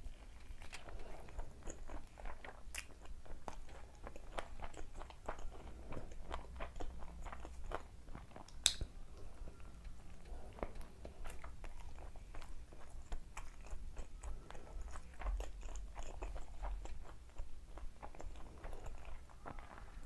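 A person biting and chewing a deep-fried chicken lollipop, a continuous run of small sharp mouth clicks and chewing noises, with one louder sharp click about nine seconds in.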